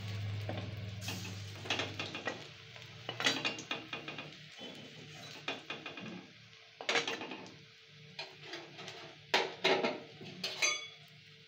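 Steel spatula scraping and clicking against a steel wok at irregular intervals while coconut fritters fry in shallow oil, with a faint sizzle between the strokes.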